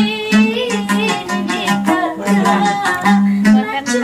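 Background music: a song with plucked strings, a melody line and a steady bass.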